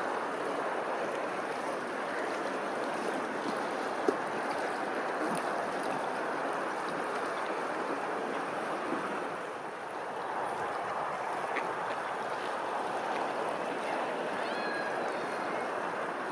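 Steady rush of running water, with a single sharp click about four seconds in.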